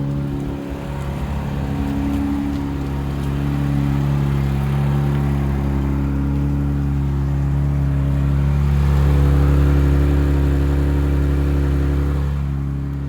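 Chrysler Pacifica Hybrid's 3.6-litre V6 petrol engine running steadily while the van is parked, heard from outside the van, with a slight swell in engine speed about nine seconds in. The engine runs even though the battery is charged, forced on by the open hood.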